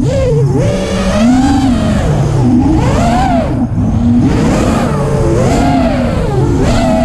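FPV quadcopter's electric motors and propellers whining, the pitch rising and falling over and over as the throttle is worked through turns and climbs. Heard from the camera on board the drone, with a rushing wind noise underneath.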